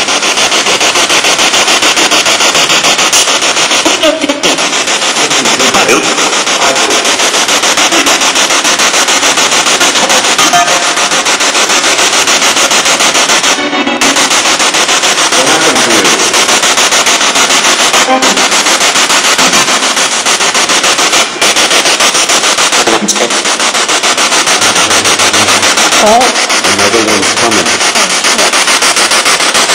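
Spirit box (radio-sweep ghost box) running: loud, harsh static chopped rapidly as it scans through radio stations, with brief snatches of broadcast sound breaking through now and then.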